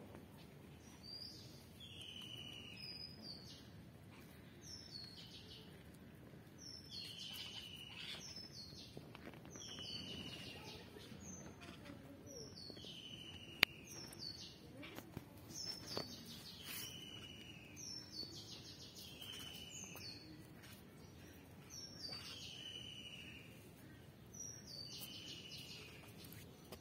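A bird calling over and over, short high chirps that fall in pitch, about one a second, over faint outdoor background noise. A sharp click is heard about 14 seconds in.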